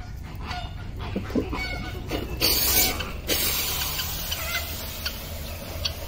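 Fowl clucking and calling in short, quick notes, with a loud hissing rasp about two and a half seconds in.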